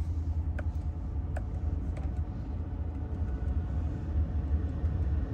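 Ford F-150's 5.0L V8 idling steadily in Park, a low rumble heard from inside the cab, with a few faint clicks in the first two seconds.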